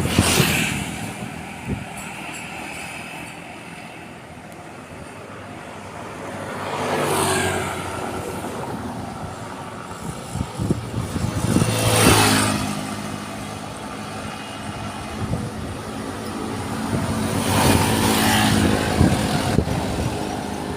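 Road traffic: trucks and other vehicles passing close by one after another, each swelling and fading away, with four main pass-bys.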